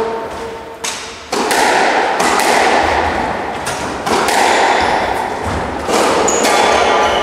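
Squash rally: the ball is struck by the rackets and smacks off the walls, a sharp hit about every second, each ringing on in the court's echo.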